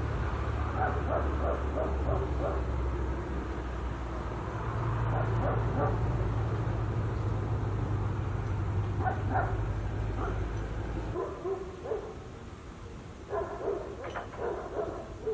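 A dog barking in quick runs of short barks, several times over, above a low steady hum that stops about eleven seconds in.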